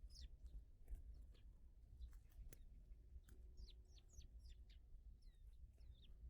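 Faint songbird chirps: short, high, downward-sliding notes scattered throughout, coming in a quicker run about four seconds in, over a low steady background rumble.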